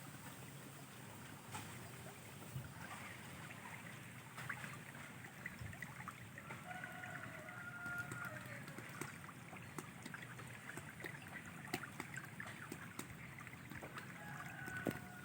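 Faint, steady flowing water of a stream, with scattered small clicks and two faint, distant pitched calls, one in the middle and one near the end.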